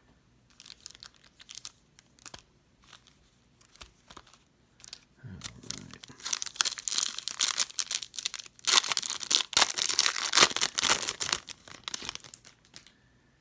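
A foil-wrapped 2019 Bowman's Best trading-card pack being torn open and its wrapper crinkled, loudest in the second half. Light clicks of cards being handled come first.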